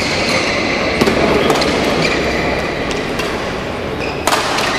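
Badminton rackets striking a shuttlecock back and forth in a rally, a sharp crack about once a second, the loudest near the end. Court shoes squeak briefly on the floor between shots, over a steady hall murmur.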